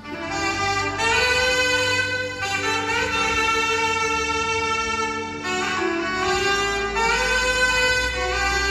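Instrumental music: a saxophone playing a slow melody of long held notes over a soft accompaniment.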